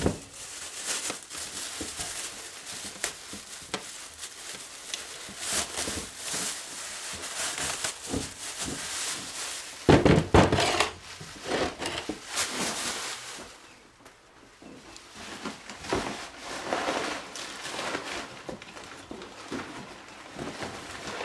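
Plastic shopping bag and shrink wrap crinkling and rustling as a chainsaw is unwrapped, with scattered knocks from handling the saw and one loud thunk about ten seconds in.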